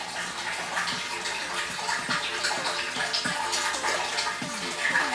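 Water tap running steadily, a continuous splashing hiss of water from a tap that won't stop running.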